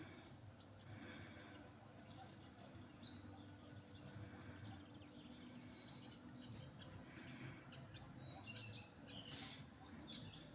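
Birds chirping, faint: many short, scattered chirps that grow busier about halfway through, over a low, steady background noise.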